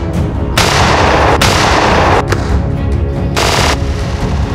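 Two pump-action shotgun blasts over background music: a long, drawn-out one about half a second in, and a shorter, sharper one about three and a half seconds in.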